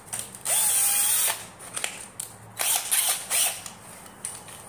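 Yellow-and-black cordless drill, its battery just fitted, run with short trigger pulls: one spin of nearly a second with a whine rising a little in pitch, then a few brief blips with clicks about two and a half seconds in.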